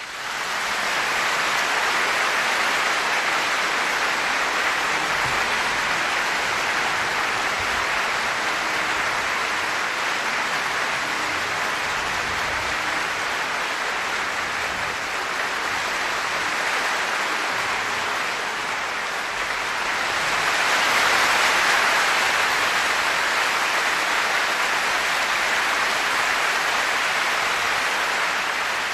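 Concert hall audience applauding, a dense steady clapping that breaks out at the start, swells about two-thirds of the way through and begins to fade near the end: the welcome for the conductor walking onstage before the performance.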